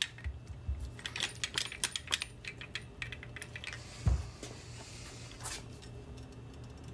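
Quick small clicks and rattles of wires and their connectors knocking against a metal handlebar as a motorcycle wiring harness is fed and pulled through it, with one dull thump about four seconds in. A low steady hum runs underneath.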